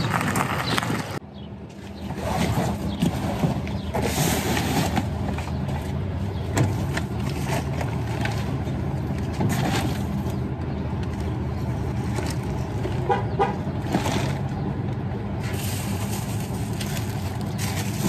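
Steady road traffic and vehicle hum, with plastic grocery bags rustling and being set down in an SUV's cargo area, giving short scattered clicks and crinkles.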